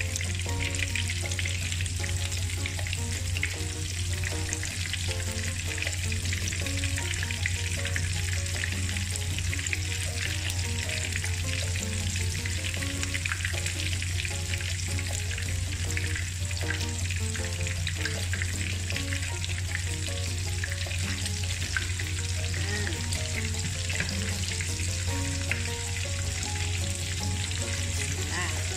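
Chicken pieces coated in crushed potato chips frying in hot oil in a pan: a steady, dense crackling sizzle, with a steady low hum underneath.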